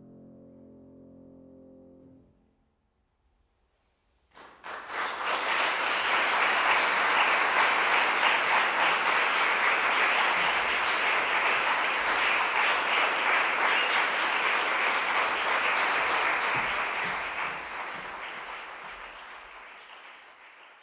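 The last piano chord dies away about two seconds in, then after a short silence an audience breaks into applause, which holds steady and then fades away near the end.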